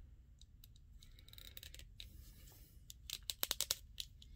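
Faint handling of a plastic 1:12-scale action figure as its arm is moved, with a few light clicks and then a quick run of sharp clicks about three seconds in.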